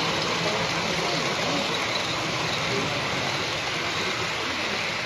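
Model passenger train running along a layout's track, a steady rolling noise, with the background chatter of a crowd.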